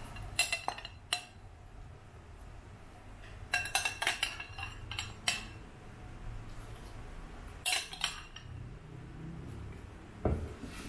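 A stainless steel ladle clinking against a glass bowl and the rim of a steel pot as pork ribs are scooped and tipped into curry. The clinks come in a few short clusters a couple of seconds apart.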